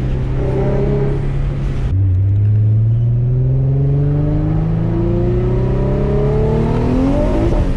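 Twin-turbocharged 3.5-litre VQ35DE V6 of an Infiniti G35 coupe, with a Motordyne exhaust, heard from inside the cabin while it accelerates: the engine note drops in pitch about two seconds in, then climbs steadily for about five seconds and falls off near the end.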